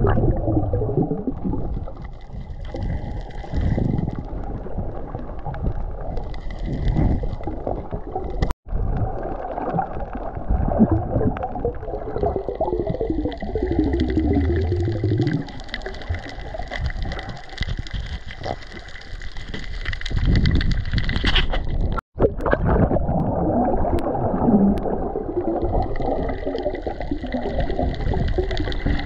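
Muffled underwater sound picked up by a camera submerged among coral: a low, uneven rumble of moving water with gurgling and sloshing, and a faint steady high tone. It drops out briefly twice, about a third and three quarters of the way through.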